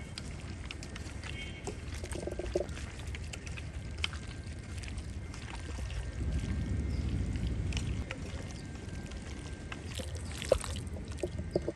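Bare hand mixing raw chicken with spice masala in a stainless steel bowl: wet squelching and rustling of the coated meat, with scattered light clicks as the fingers touch the bowl, over a steady low rumble that swells for a couple of seconds past the middle.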